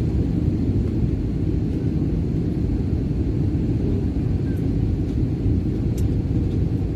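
Steady low rumble of an airliner heard from inside the passenger cabin during landing, with a few faint ticks.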